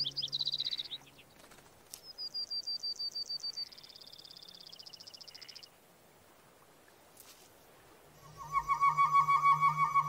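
Birds chirping and trilling: a few high chirps at the start, then a rapid high trill of quick even pulses. Near the end a louder, lower warbling trill comes in over a low hum.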